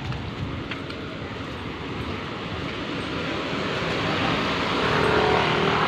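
Street traffic noise, with a motor vehicle's engine growing steadily louder over the last couple of seconds as it comes near.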